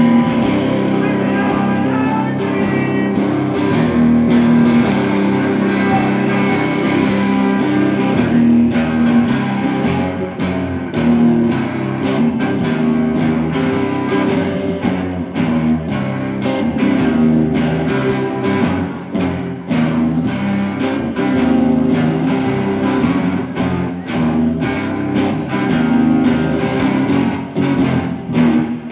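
Two electric guitars, one a hollow-body, playing live music over a low sustained riff. A steady beat of sharp hits comes in from about eight seconds in.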